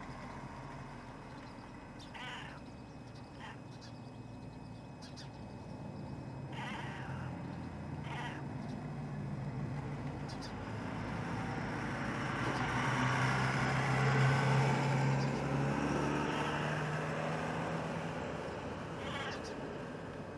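A cat making short meows at birds, a handful of times. Partway through, a passing 18-wheeler's engine and road noise swells up, loudest about two-thirds of the way in, then fades away.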